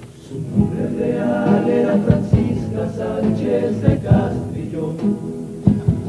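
Cádiz carnival group singing together in chorus, with sharp percussive beats through the song; the singing swells in just after the start.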